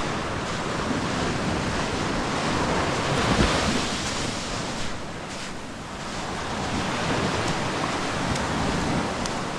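Ocean surf washing in over a rocky low-tide beach, with wind buffeting the microphone. A wave swells loudest about three seconds in, eases off, then the surf builds again.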